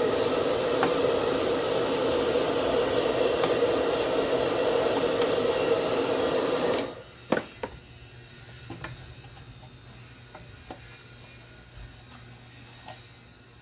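Electric air blower running steadily, blowing air to dry the blender's parts, then switched off a little past halfway. A sharp click follows just after, then a few faint clicks and knocks.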